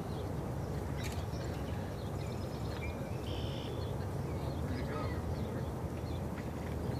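Steady low outdoor rumble, with a few faint short bird calls in the middle.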